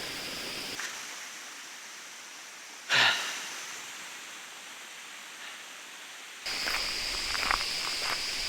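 Steady rushing hiss of a small cascading waterfall, which drops a little about a second in and comes back louder near the end. A short, loud breath is heard about three seconds in.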